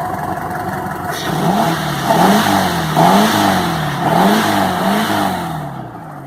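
VW Beetle's air-cooled flat-four engine revved up and down repeatedly, about once a second, with no belt squeal now that a new alternator belt is fitted.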